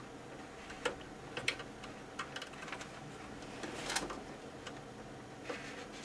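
Faint, irregular small clicks and ticks of front-panel connector plugs being worked onto a PC motherboard's header pins, about half a dozen, with a slightly louder one about four seconds in.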